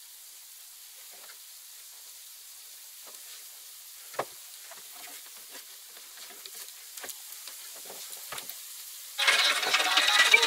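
Faint steady hiss with scattered light clicks and taps, the sharpest a little past four seconds in; loud background music cuts in near the end.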